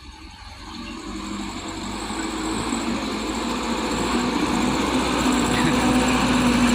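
Loaded Mitsubishi Canter 125 PS light truck's diesel engine running under load, growing steadily louder as the truck comes closer.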